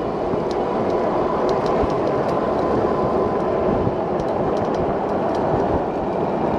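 Steady rushing road noise while riding an e-bike along a busy road: wind and tyre rumble mixed with traffic, with a faint steady whine through the first half.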